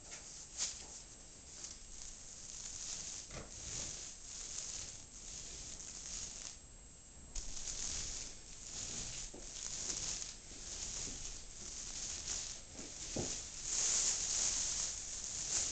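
Paint roller on an extension pole being rolled across a ceiling, a crackling hiss that swells and fades with each stroke, with a few light knocks in between.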